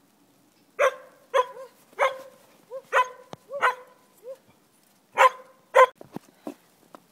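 Small dog barking: a quick run of short, sharp barks, about nine in all, with a brief pause before the last two.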